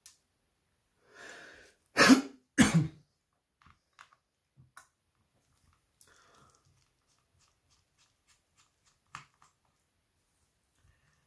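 A person coughs twice in quick succession, just after a short breath. Faint small clicks follow now and then, from screws being taken out with a precision screwdriver.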